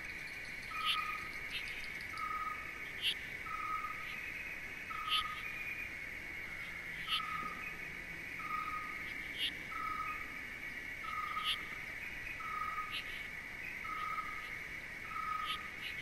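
Nature soundscape laid over the pictures: a steady insect chorus, a short whistled note repeated a little more than once a second, and brief higher chirps every second or two.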